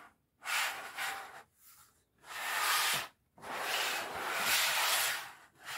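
Hard plastic packaging being handled, rubbing and scraping in four strokes of about half a second to two seconds each, with short pauses between them.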